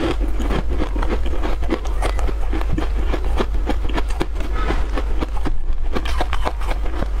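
Close-miked chewing of a crunchy, crumbly morsel: rapid, irregular crunches one after another.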